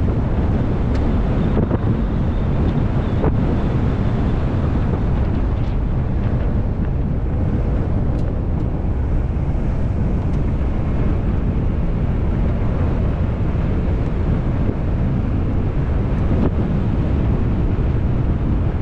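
Wind buffeting an action camera mounted on the outside of a Ford Bronco Wildtrak's hood as it drives along a dirt track, over the steady running of the SUV and its tyres on dirt; a few faint ticks.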